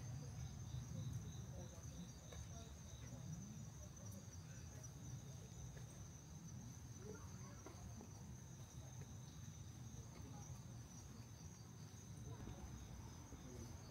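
Insects calling in a steady high-pitched chorus, with a second, pulsing insect call that fades in and out, over a low background rumble.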